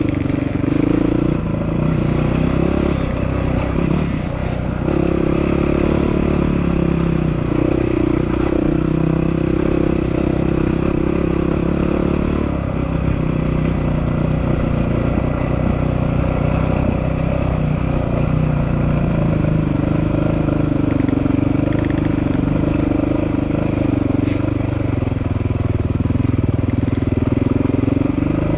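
Dirt bike engine running under way on a trail ride, its note rising and falling as the throttle opens and closes.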